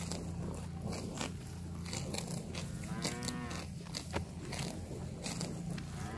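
Zebu-type cows grazing, tearing and cropping grass in short crisp rips, and one cow gives a short moo about three seconds in.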